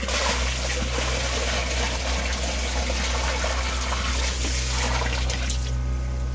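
Water poured from a bucket into a sump pit, splashing steadily into the well around the submersible sump pump, then stopping suddenly about five and a half seconds in. A steady low hum runs underneath.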